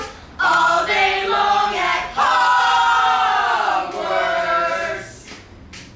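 Several voices singing together in two long phrases, the second held longer and sliding down slightly in pitch before it fades out about five seconds in.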